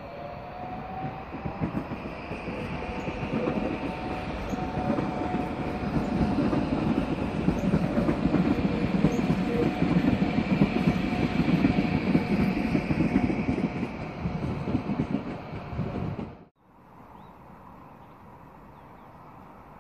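A passenger train of coaches passing close at speed: the wheels rumble on the rails with a rapid clatter and a steady whine over it. About sixteen seconds in the sound cuts off abruptly to a quiet, steady background hum.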